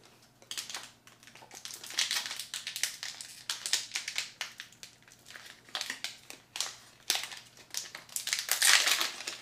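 Foil wrapper of a Pokémon trading-card booster pack crinkling and rustling in irregular bursts as it is pulled open by hand, loudest near the end.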